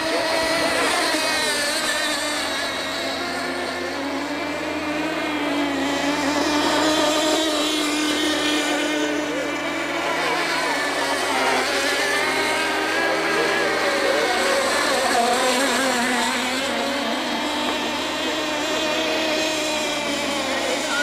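Several radio-controlled tunnel-hull model racing boats running at speed, their small engines whining together as several overlapping notes that rise and fall as the boats pass and turn.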